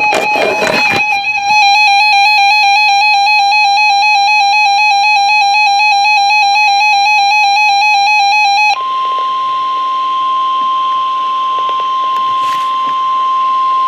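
Emergency Alert System alert tones. After a second of noisy static, the two-tone EAS attention signal sounds steadily for about seven seconds, then cuts abruptly to a single steady NOAA Weather Radio alert tone over radio hiss.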